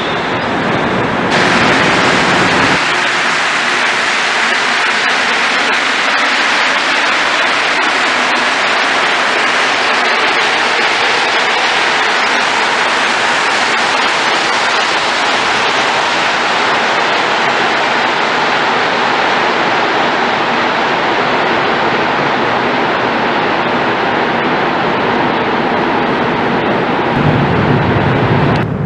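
Montreal Metro rubber-tyred train running along a station platform: a loud, steady rolling hiss, with a low rumble joining in near the end.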